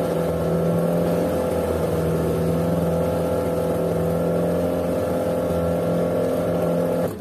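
Boat's outboard motor running steadily at slow trolling speed, an even drone. It cuts off suddenly near the end.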